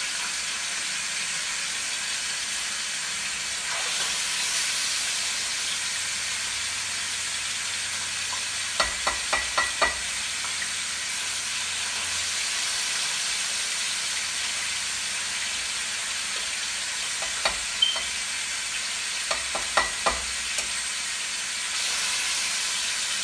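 Seasoned chicken pieces sizzling steadily as they brown in hot oil in a stainless steel pot. Sharp clicks of tongs against the pot come in short runs as the pieces are turned: four about nine seconds in, then a few more around eighteen and twenty seconds.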